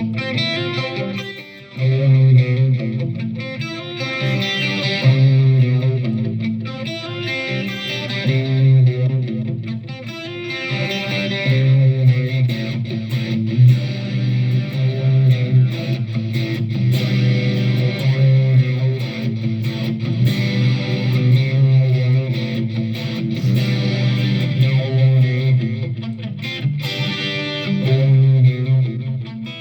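Electric guitar played continuously through a Donner Arena 2000 multi-effects unit's amp modelling, a run of notes and chords with no speech.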